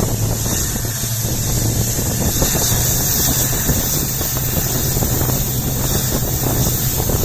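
EMD WDP4D diesel locomotive's two-stroke V16 engine humming steadily under power as the train runs, heard from the coach behind, with wind rushing past the microphone.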